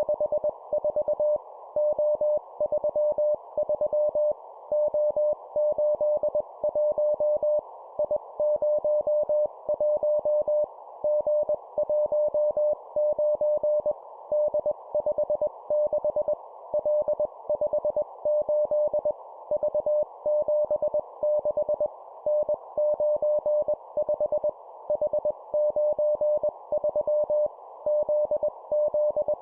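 Morse code sent at 20 words per minute as a single-pitch tone keyed on and off in dots and dashes. It comes in three-character groups of a letter and two numbers, each group followed by a short pause, over a steady band of hiss.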